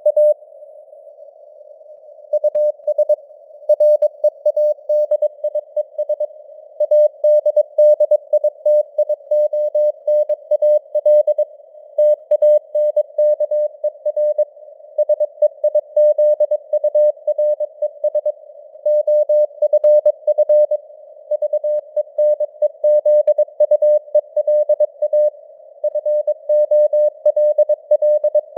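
Morse code (CW) sent at 22 words per minute as a single steady beep keyed on and off in dots and dashes. It sits over a narrow band of hissing simulated radio receiver noise, and the signal strength fades up and down (QSB). There is a pause of about two seconds near the start.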